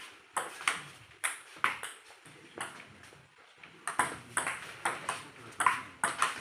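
Table-tennis rally: the ball clicks sharply off the tabletop and the players' paddles in alternation, each hit a short ringing tick. The hits are spaced about half a second apart at first and come quicker and closer together from about two-thirds of the way in.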